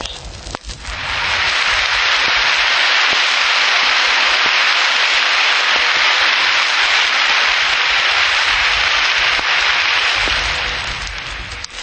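Large audience applauding to greet a speaker who has just been introduced, heard on an old 1933 radio broadcast recording. The clapping swells up about a second in, holds steady and dies away near the end.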